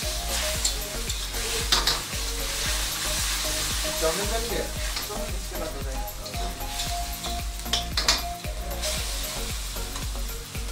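Food sizzling and hissing as it is stir-fried in a wok over a gas burner, with the metal ladle scraping and knocking against the wok, sharpest about two seconds in and again about eight seconds in.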